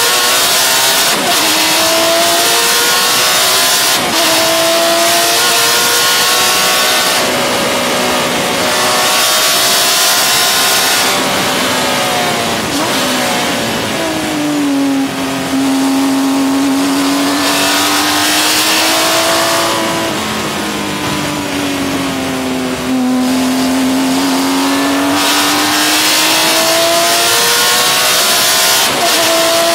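Porsche 996 GT3 Cup's 3.6-litre flat-six engine under race load, revving up through the gears with a sudden drop in pitch at each shift. About halfway through the revs fall low and swell gently for several seconds, then climb again near the end.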